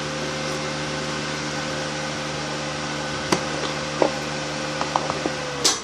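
Rhino MMA-120A inverter welder powered on, its cooling fan running with a steady whir and hum. A few light clicks come in the second half. A sharp click near the end, and the running sound cuts off.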